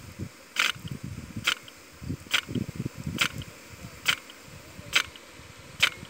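HT-44G impact rain gun running, its swing arm striking the nozzle in a steady sharp clack about once every 0.9 s, seven times, as the gun steps round. A low, irregular rumble runs underneath.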